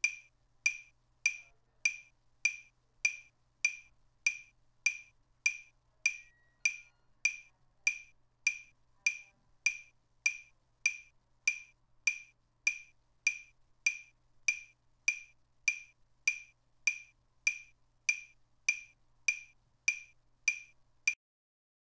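Metronome-style wood-block clicks keeping an even tempo of about three clicks every two seconds, then stopping near the end.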